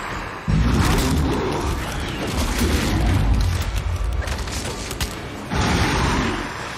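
Film sound effects of a werewolf transformation: a sudden heavy boom about half a second in, then a dense run of sharp cracks until a second loud surge near the end, mixed with music.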